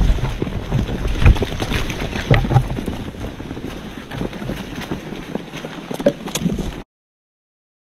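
Wind buffeting the microphone with a low rumble and scattered short knocks and scuffles. The sound cuts off abruptly about seven seconds in.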